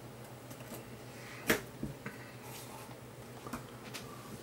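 A few light clicks and taps as a handheld SDR radio receiver and its telescopic antenna are handled and set down on a silicone mat. The loudest click comes about a second and a half in, and a faint steady hum sits underneath.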